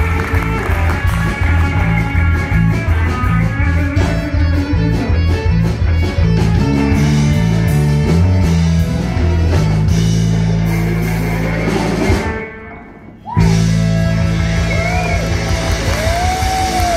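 Live country band playing electric guitar and fiddle over drums, with a strong steady beat. A little past the middle the band stops short for about a second, then comes back in.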